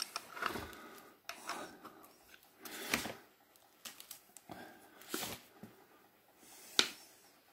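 An Allen key turning the hex bolt in the plastic chain cover of a Titan electric pole chainsaw, with a few small clicks and scrapes; the sharpest click comes near the end.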